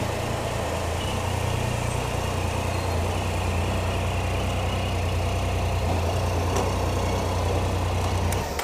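Triumph Tiger 800's three-cylinder engine running steadily at low revs, the pitch unchanging throughout; the sound stops abruptly near the end.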